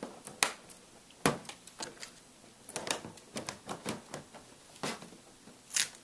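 Irregular sharp clicks and light knocks of plastic and metal as a replacement LCD panel is pressed and settled into an Acer Aspire 5250 laptop's plastic screen lid. Several are louder, about half a second in, just over a second in, and near the end.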